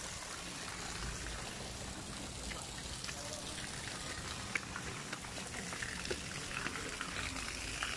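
Steady splashing of water falling from a small garden waterfall into a pond, growing a little louder near the end.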